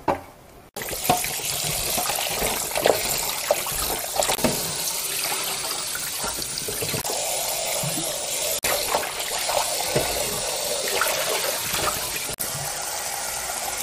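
Tap water running into a stainless steel bowl of cut pork ribs, starting about a second in, while a gloved hand swishes the ribs in the water with small splashes and knocks: the ribs are being soaked and rinsed to draw out the blood.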